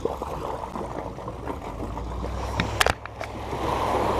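Water sloshing and lapping against a bass boat's hull as the boat is launched, over a steady low engine hum. A couple of sharp knocks come a little before three seconds in, and the washing grows louder near the end.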